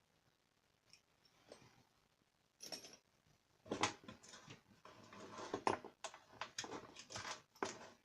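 Small metal hand tools being handled and clinked together while a toolbox is sorted: a run of short clicks and clatters, sparse at first and busier from a few seconds in.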